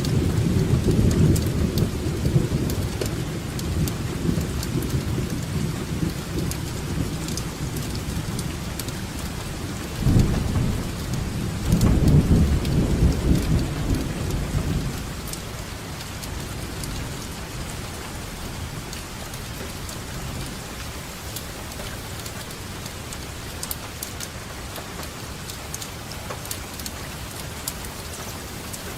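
Steady rainfall with rolling thunder. Low rumbles are loudest at the start and swell again about ten to fourteen seconds in, then die away, leaving the even hiss of rain with scattered drip ticks.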